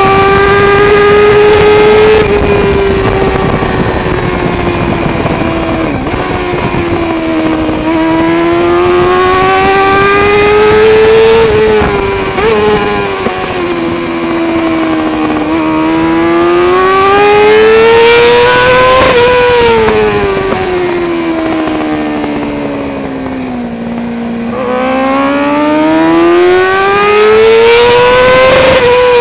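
Kawasaki ZXR400 racebike's inline-four engine through a Pipewerx exhaust can, at full racing speed: a high-pitched howl whose pitch climbs for several seconds as it revs out, then drops sharply as the throttle closes, three times over. Wind noise on the microphone runs underneath.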